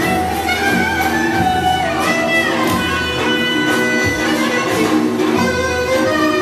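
Turkish folk dance music played through stage loudspeakers: an ornamented melody with sliding notes over a steady bass.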